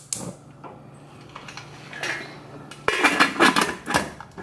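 Stainless-steel pressure cooker lid being set on the pot and worked into its locked position: metal clattering and scraping with a few clicks, busiest about three seconds in.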